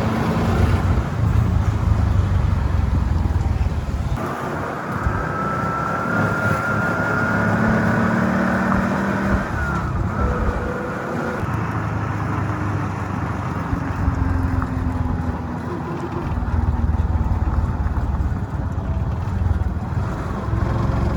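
Motor vehicle running along a road: a steady engine and road rumble, with a faint thin whine that rises slowly in pitch a few seconds in.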